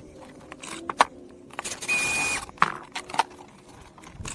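Perforated metal strapping band being handled around a bundle of insulated PEX pipes: scattered metallic clicks and rattles, with one louder scraping rush lasting about half a second around two seconds in.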